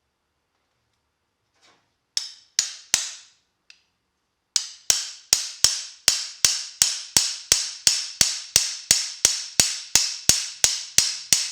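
A hammer striking metal as a new bushing is driven into a 1971 Camaro door hinge. Three sharp blows come about two seconds in, then a steady run of about twenty blows at roughly three a second, each ringing briefly.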